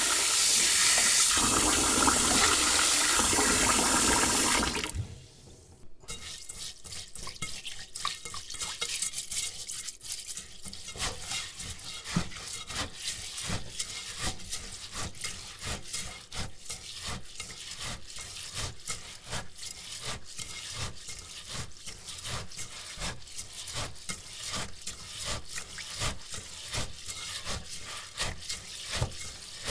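Tap water running into a bowl of rice, shutting off after about five seconds; then hands rubbing and scrubbing the wet rice grains against each other and the bowl in quick repeated strokes, about two or three a second.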